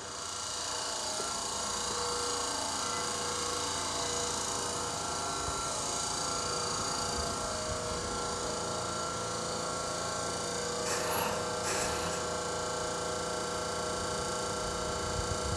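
A train at the station running steadily, a low mechanical hum with several held whining tones, swelling up over the first second. Two short hisses come about eleven seconds in.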